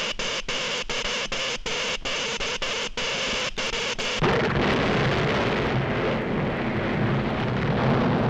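Cartoon sound effect of an electric charge crackling and sputtering along a cable, cut by many brief irregular dropouts. About four seconds in it gives way to a loud, dense earthquake rumble as buildings and an elevated roadway break apart and debris falls.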